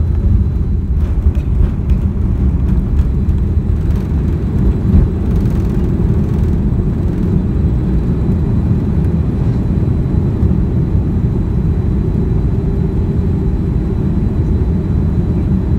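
Cabin noise of a Boeing 787-10 during its takeoff roll and lift-off: the Rolls-Royce Trent 1000 engines at takeoff thrust give a loud, steady low rumble. A few knocks come through in the first half.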